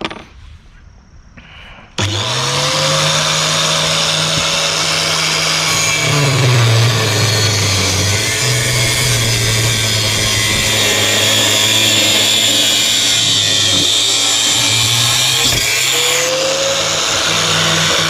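Small angle grinder switched on about two seconds in and cutting through a workpiece in a guide, a loud steady whine with grinding hiss; its motor pitch drops when the disc bites under load, around a third of the way in, then recovers.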